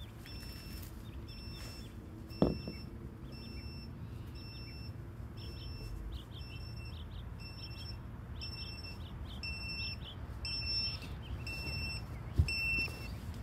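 Electronic beeper sounding short high beeps about twice a second, with birds chirping. Two sharp knocks come, one about two and a half seconds in and one near the end.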